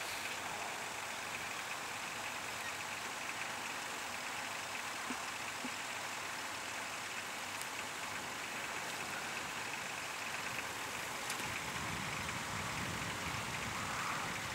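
Steady outdoor hiss, with a side-by-side UTV's engine growing louder over the last few seconds as it drives up through the snow.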